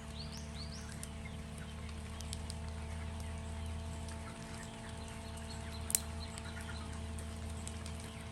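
Chickens clucking over a steady low hum, with a few short rising high chirps in the first second and a single sharp click about six seconds in.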